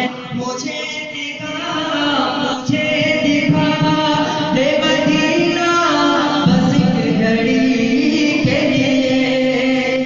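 Male voice singing a devotional Urdu song in a naat-style chant, over a backing of layered voices holding a steady drone.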